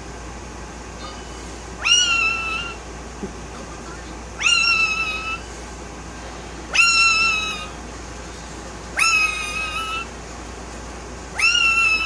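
Blue Indian ringneck parakeet calling five times, about every two and a half seconds. Each call sweeps sharply up into a held note lasting under a second.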